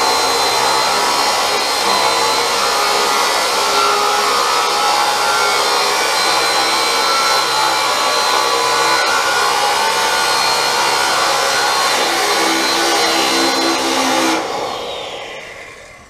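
Hand-held power tool cutting a corrugated sheet-metal panel, its motor and the cut running steadily with a high tone; about 14 seconds in it is switched off and winds down, its pitch falling.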